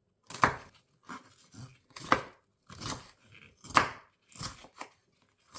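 Kitchen knife chopping a bell pepper into small pieces: a series of sharp cuts, roughly one every 0.7 s, some softer than others.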